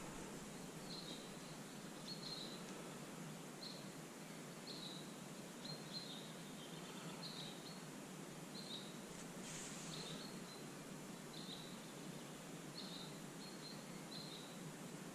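Faint outdoor background hiss with a small bird calling, short high chirps repeated every second or so.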